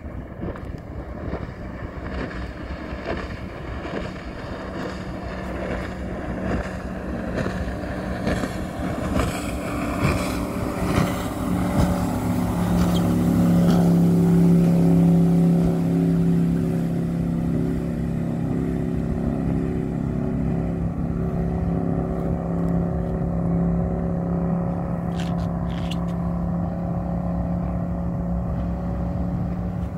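Motorboat engine running at high speed as the boat approaches and passes, a steady drone that grows louder to a peak about halfway through and then holds as the boat runs away.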